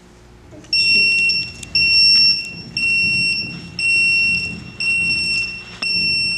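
Industrial Scientific T40 Rattler H2S gas detector beeping: a shrill electronic beep, about one per second, starting just under a second in. It sounds while the zeroed detector blinks, signalling that it is ready for the calibration gas to be connected.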